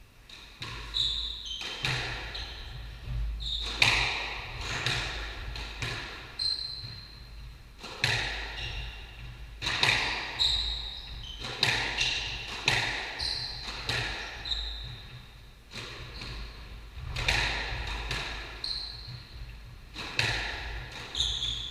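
Squash rally: the ball cracking sharply off the rackets and the walls of the court in quick, irregular succession, with short high squeaks from players' shoes on the wooden floor, all echoing in the enclosed court.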